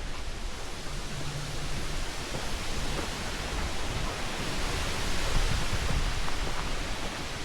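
Wind rushing steadily through the trees, with wind rumbling on the microphone.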